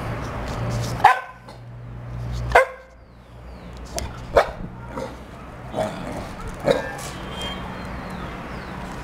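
Peruvian Hairless Dog barking: two loud barks about a second apart near the start, then several softer barks.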